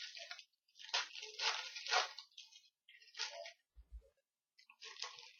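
A foil trading-card pack being torn open and crinkled, in several short rustling bursts, with a soft low bump about four seconds in.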